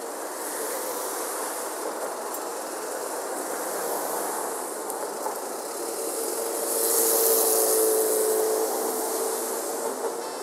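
Busy city street ambience at a station-front intersection, with continuous traffic noise and the hubbub of the street. About six seconds in a steady hum rises, and a loud hiss swells for a second or two near the end, as a large vehicle passes close by.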